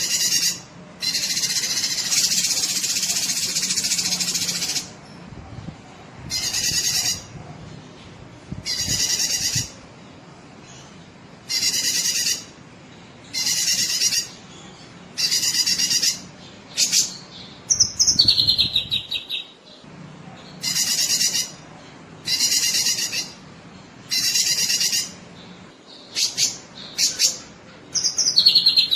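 Cucak kinoi singing: loud, rapid chattering phrases about a second long, repeated every second or two, with a longer burst of about four seconds near the start. Twice, about two-thirds through and again at the end, the song drops into a falling trill.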